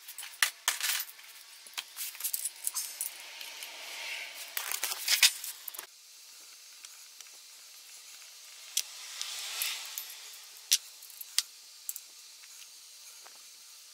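Metal clinks, taps and scraping from a Hyosung GD250N motorcycle engine's crankcase and small parts being handled during disassembly. There is a dense cluster in the first half that stops abruptly, then a few single sharp clicks later.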